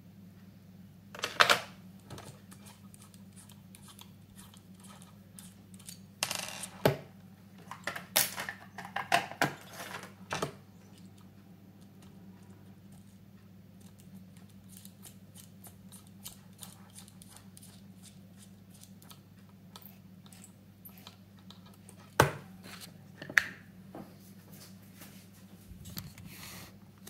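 Scattered clicks, rattles and rustles of small objects being handled, in short clusters a few seconds apart, the sharpest about a second and a half in and again near the end, over a steady low hum.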